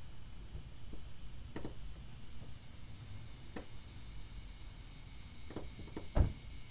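Quiet outdoor ambience with a low rumble and a few soft knocks spread through it. The loudest knock comes near the end.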